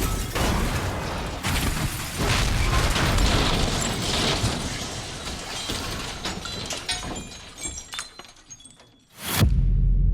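Plane crash: a loud impact followed by several seconds of breaking and shattering with many sharp cracks, dying away. Near the end a short burst gives way to a steady low rumble of waves and wind.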